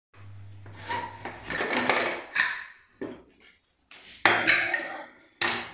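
Metal cookware being handled in a kitchen: clattering and scraping with a few sharp clanks. The first comes about two and a half seconds in, the loudest a little after four seconds.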